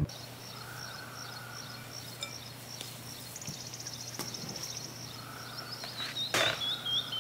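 Birds chirping in the background over a low steady hum, with a short fast trill about three and a half seconds in and a run of chirps near the end. Soft handling knocks come as risen bread dough is tipped out of a glass bowl onto a silicone mat: a light one about four seconds in and a sharper, louder one at about six and a half seconds.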